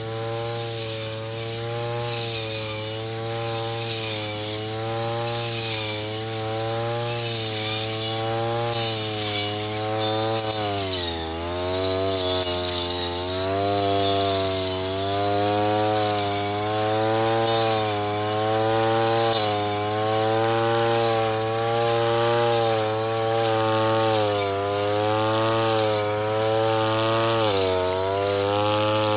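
Brush cutter's small engine running at high revs, its pitch wavering as it cuts, with a scratchy high hiss over it. The revs dip briefly twice, about a third of the way in and again near the end.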